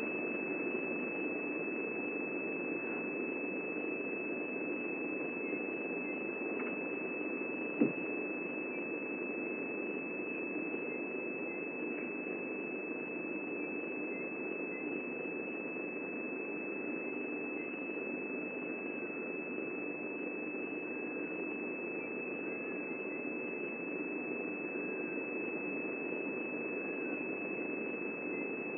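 A steady high-pitched whine holds one pitch throughout over a constant low hiss, typical of a narrow-band live-broadcast audio feed. A single click comes about eight seconds in.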